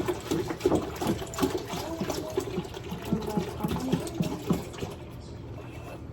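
Milk glugging out of a jug or carton into a pot, a quick irregular run of gurgles that dies down about five seconds in.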